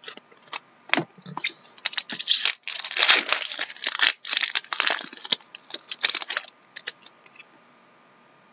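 Hockey trading cards and crinkly clear plastic being handled: a dense run of quick crackling crinkles and clicks, thickest in the middle, thinning to a few scattered clicks and stopping about seven seconds in.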